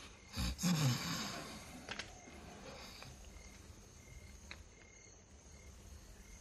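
Crickets chirping in short, evenly repeated high chirps as night ambience. About half a second in there is a thump, followed by a brief rustling shuffle.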